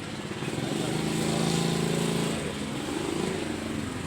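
An engine running, loudest for about a second from a second in, then easing off, with a short shift in pitch near the end.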